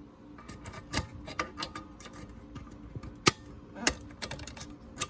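Irregular small clicks and taps of metal parts on an SCM Sterling typewriter as its back plate is pried loose at the hinge, with the sharpest click a little over three seconds in and another just before four. A faint steady hum lies underneath.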